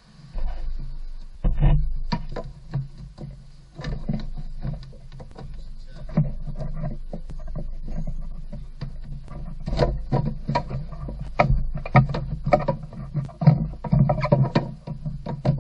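Hard plastic engine undercover being manoeuvred and pushed into place under a car: irregular knocks, clicks and scraping of plastic against the body and fittings, more frequent near the end.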